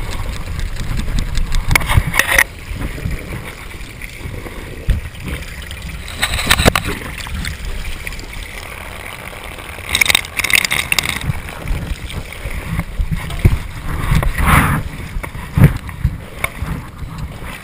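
Water from a garden hose running and splashing, over a rough rumble and scattered knocks from cameras strapped to a moving pony and handler, with short loud noisy bursts at intervals.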